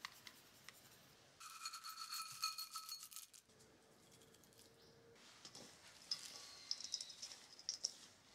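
Dry seasonings (salt, cut kombu and dried red chilli) dropped into a stainless steel mixing bowl of rice bran, clattering with a light metallic ringing from the bowl. It comes in two spells: a dense patter about a second and a half in that lasts nearly two seconds, then a lighter scatter of ticks over the last few seconds.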